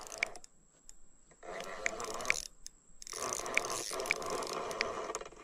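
Spinning reel being cranked to bring in a hooked fish: a steady mechanical whir from the gears with light ticks, cutting out briefly twice.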